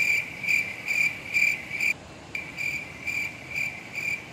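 Cricket chirping: a high, clear chirp repeating about twice a second, with a short break about two seconds in.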